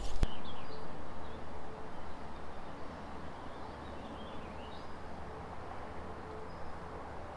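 Outdoor ambience by a wooded creek: songbirds chirp now and then over a steady background hiss, after a single sharp click at the very start.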